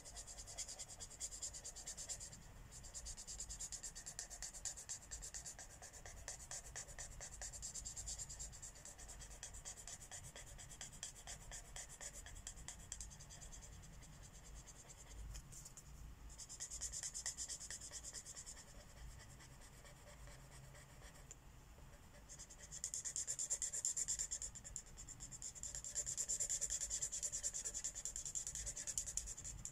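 Marker tip scratching across paper in quick back-and-forth coloring strokes, in several spells with brief pauses between them.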